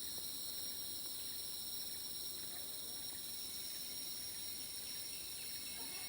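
Chorus of rainforest insects, a steady high-pitched buzzing and trilling in several layered pitches.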